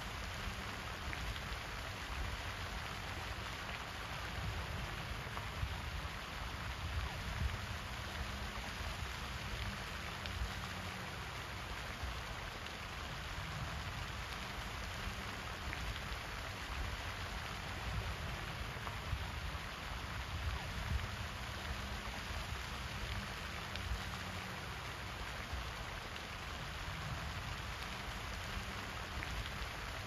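Pond fountain's jet of water falling back onto the pond surface, a steady hiss of splashing water.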